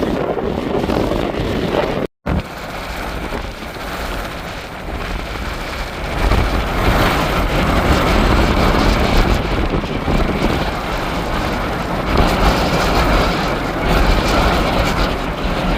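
Strong gusting wind buffeting the microphone, a heavy rumbling roar that swells in gusts, with a brief dropout about two seconds in.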